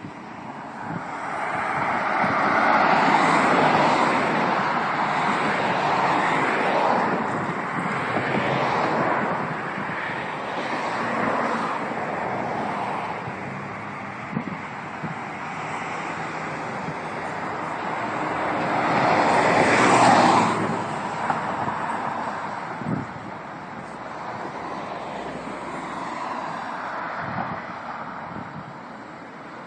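Road traffic: cars passing on the road, their tyre and engine noise swelling and fading, loudest about three seconds in and again about twenty seconds in.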